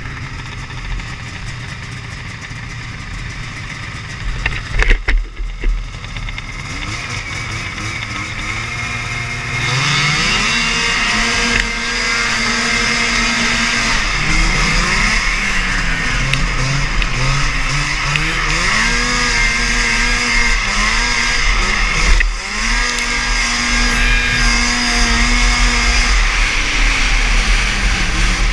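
Vintage snowmobile engines idling at the start, with a few sharp loud bursts about five seconds in. About ten seconds in the sleds accelerate away together, engine pitch climbing and holding high, easing off and rising again several times, with a strong rush of wind noise.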